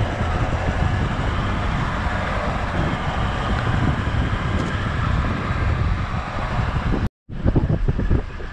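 Toyota LandCruiser driving a soft sandy bush track in high-range four-wheel drive: steady engine and tyre rumble with wind buffeting the microphone. The sound cuts out briefly about seven seconds in, then comes back as heavier, bumpier rumbling.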